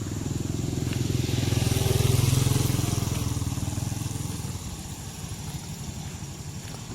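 A motor vehicle's engine passing close by, growing louder to a peak about two seconds in and then fading away.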